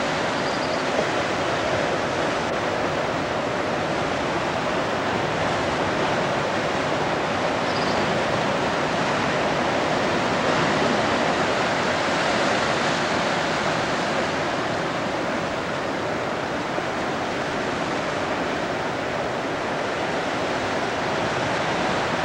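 Ocean surf breaking, a steady rushing wash that rises and eases only slightly.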